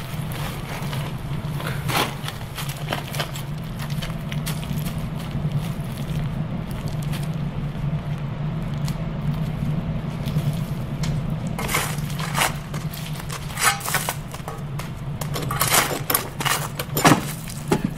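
A low steady hum, with scattered crunching knocks of footsteps on loose coal. Near the end comes a quick run of metallic rattles and knocks as a wooden door's iron handle is tried and yanked: the door is locked.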